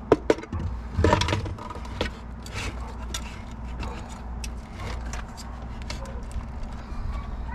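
Knocks and scrapes of a power inverter being set down and slid onto a wooden plank shelf. A few sharp clunks come in the first second and a half, followed by lighter taps and rubbing.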